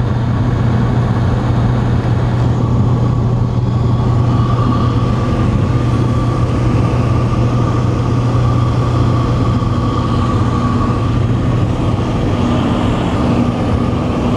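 Single-engine skydiving plane's engine and propeller droning steadily in flight, heard from inside the cabin: a loud deep hum with a steady higher whine above it.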